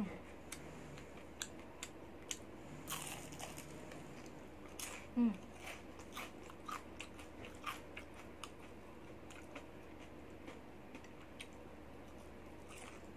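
Close-up crunching and chewing of crispy batter-fried enoki mushrooms: a run of sharp crunches, thickest in the first half and thinning out toward the end.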